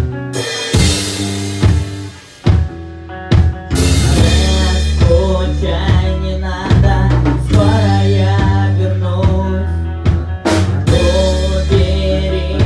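Rock band music with a drum kit: sharp drum hits open it, then a full band comes in under a steady beat, with no singing.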